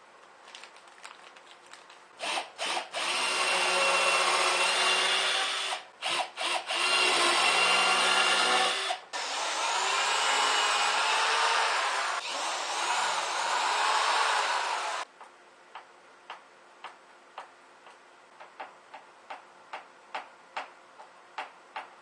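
Power drill driving wood screws through the inner board into the backboard: a couple of short trigger blips, then three long runs of the motor under load, its pitch wavering. After that, a string of light clicks that come closer together toward the end.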